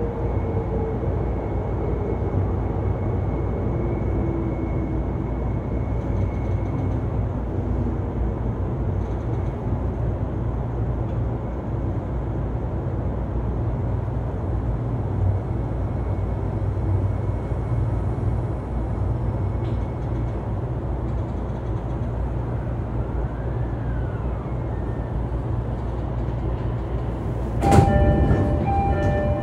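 E233-3000 series electric commuter train, heard from a motor car with MT75 traction motors and a Hitachi IGBT-VVVF inverter, running along: a steady rumble of wheels and motors, with a motor whine falling in pitch over the first several seconds. Near the end a sudden louder rush with ringing tones cuts in.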